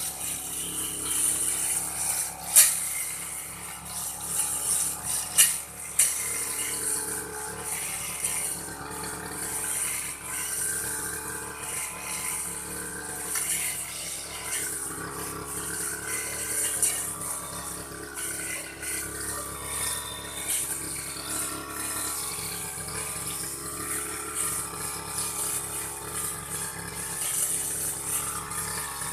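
Old grass-cutting machine running steadily as it cuts grass, with two sharp clicks in the first few seconds.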